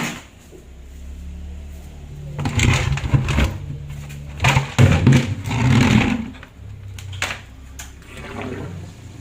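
Top-load Whirlpool washing machine draining: the drain pump hums steadily, and for a few seconds in the middle water gushes out in loud surges.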